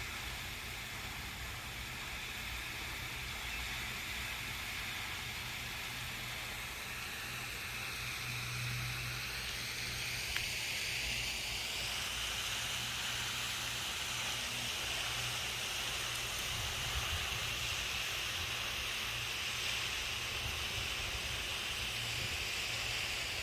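Italian honeybees buzzing around a freshly installed hive, a low wavering hum over a steady hiss; the newly moved colony is still a little worked up.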